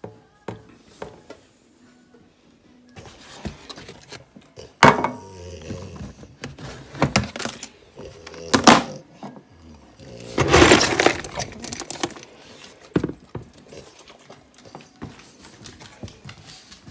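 A run of knocks and clatters from stainless steel dog bowls and a kitchen cupboard being handled, with a longer, loud rattle of dry dog kibble being scooped out of a plastic tub about ten seconds in.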